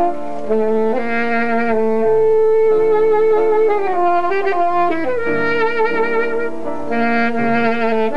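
Saxophone playing a slow melody of long held notes with vibrato, over sustained keyboard chords.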